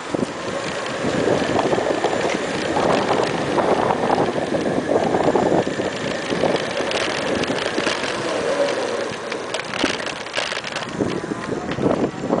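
Wind rushing and buffeting over the microphone of a moving e-bike, with a faint steady whine underneath.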